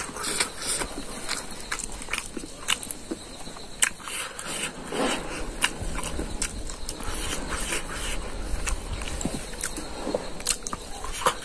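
Close-up wet chewing and lip smacking of a man eating rice and beef curry by hand, with many short sharp mouth clicks.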